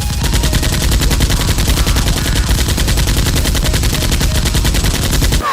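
Sustained automatic gunfire, a fast even stream of about ten shots a second with a heavy low rumble beneath, stopping abruptly near the end.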